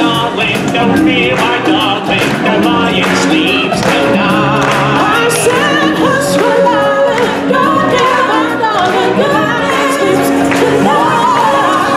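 Live stage-musical number: voices singing a melody with held notes over instrumental accompaniment.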